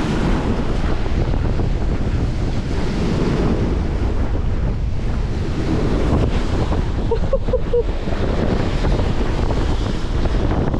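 Strong wind buffeting the microphone in a steady low rumble, over the wash of big waves on the lake.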